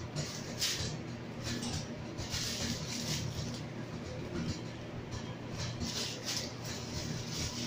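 Clear plastic packaging crinkling and rustling in irregular bursts as a wrapped bag is handled, over a steady low hum.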